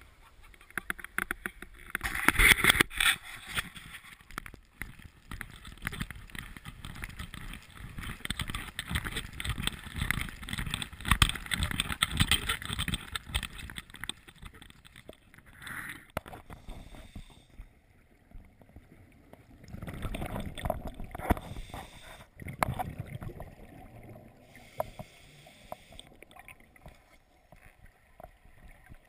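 Muffled knocking and rustling of scuba gear heard through a sealed action-camera housing as a diver walks into the water. Later, underwater, come bursts of rushing, gurgling noise every couple of seconds, typical of exhaled regulator bubbles.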